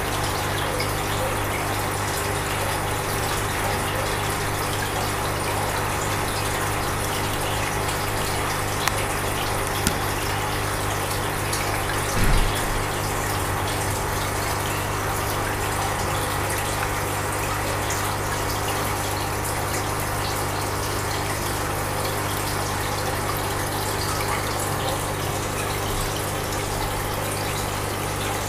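Aquarium filter pump running steadily: a constant rush of moving water over a low electrical hum. A brief low thump about twelve seconds in, with two faint clicks a few seconds before it.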